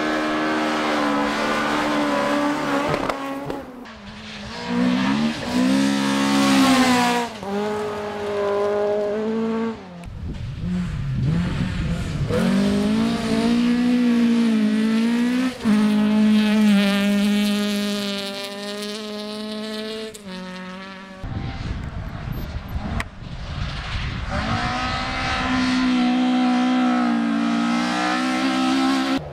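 Toyota Corolla GT AE86 rally cars with 1.6-litre twin-cam four-cylinder engines, revving hard. The pitch climbs and drops again and again through gear changes. The sound changes abruptly several times where short clips are cut together.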